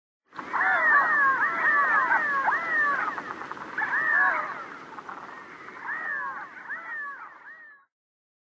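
A flock of redhead drakes giving their cat-like, rising-and-falling meow calls, many overlapping at once. The calling is thickest for the first four seconds, then thins out and gets quieter before stopping abruptly near the end.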